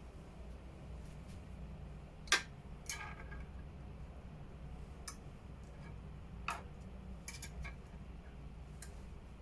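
Steady low hum with about seven light, sharp clicks and ticks scattered through it; the loudest comes about two seconds in.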